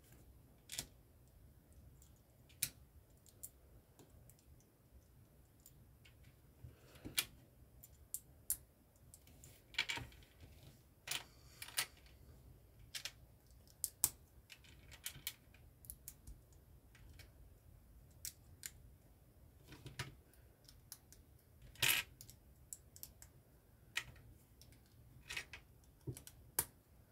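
Plastic LEGO bricks clicking as they are handled and pressed together, in irregular sharp clicks about a second apart, with a few short rustles of pieces being handled near the middle.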